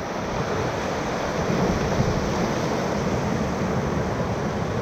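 Whitewater rapids rushing around a raft: a steady, even roar of churning river water.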